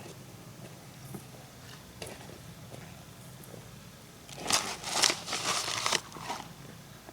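Crinkling, rustling noise that grows loud for about two seconds in the second half, over a faint steady low hum.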